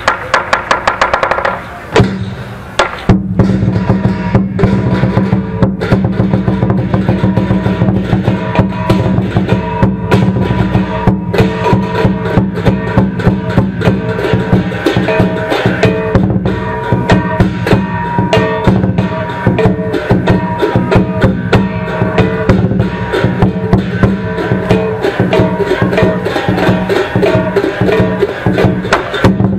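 Lion dance percussion: a big Chinese lion drum with clashing cymbals and gong, beating a fast, dense rhythm. It pauses briefly about two seconds in, then runs on unbroken.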